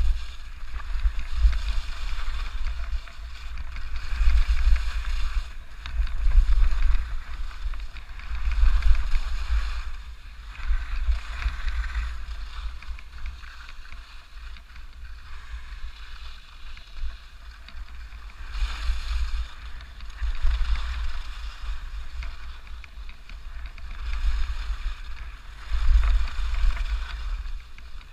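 Skis scraping and hissing over firm, chopped-up snow, swelling and fading every couple of seconds with the turns, over a heavy wind rumble buffeting a GoPro Hero4 Black's microphone at skiing speed.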